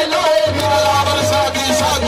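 Live qawwali music: a harmonium holds a steady note under a wavering melody, with drums beating a fast rhythm.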